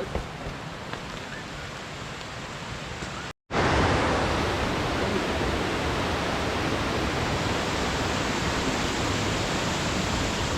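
Steady rushing of a waterfall. After an abrupt cut a little over three seconds in, the rush comes back louder and fuller. Before the cut it is quieter, with a few faint clicks.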